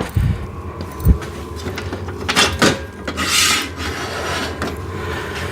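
Metal exercise bench being repositioned and handled: a couple of low thumps, then two longer scraping, rubbing noises about two and three seconds in.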